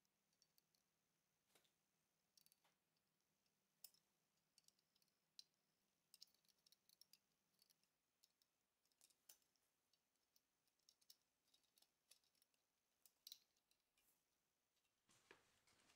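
Faint, scattered clicks and taps of metal binder clips being clipped onto a steel rule and set down on a tabletop, with a brief rustle of handling near the end.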